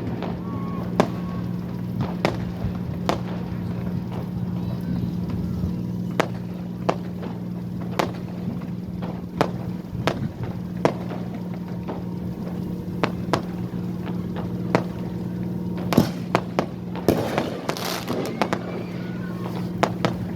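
Fireworks going off in irregular single bangs, roughly one a second, with a quicker run of bangs about sixteen to eighteen seconds in. Under them runs a steady low hum.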